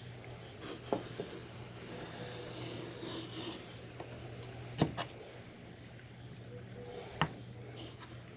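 Faint scratching of a compass pencil drawing a circle on MDF board, with three light clicks or knocks.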